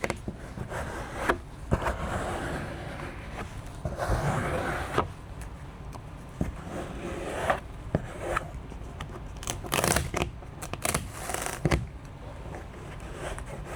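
Squeegee scraping and rubbing over a vinyl door skin as it is pressed down onto the door panel, in a run of uneven strokes with a few sharp clicks between them.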